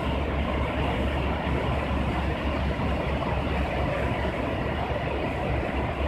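Water rushing through the open sluices of a canal lock's upstream gates and churning into the chamber as the lock fills. A steady, loud rush with a deep rumble underneath.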